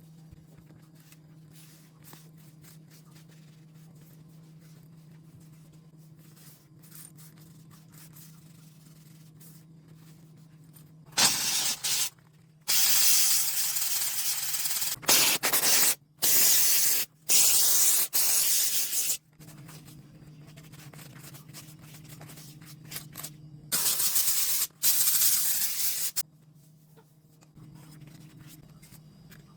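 Cleaning spray hissing in a run of loud bursts, each under a second to about two seconds long, clustered in the middle of the stretch with two more near the end. A steady low hum sits underneath.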